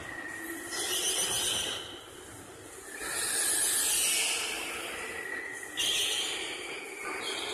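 Indoor electric racing go-karts passing one after another, a hissing whir that swells and fades as each kart goes by. It is loudest about three to four seconds in, when a kart passes close, with another brief swell near six seconds.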